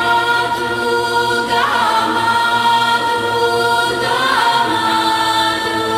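Choral music: voices hold long sustained chords over a steady low drone, the chord shifting twice.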